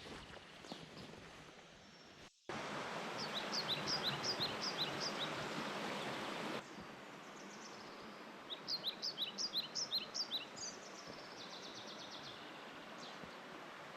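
Mountain stream rushing, with a small bird singing a quick series of short, high, falling notes twice. The water sound jumps louder about two and a half seconds in and drops back about four seconds later.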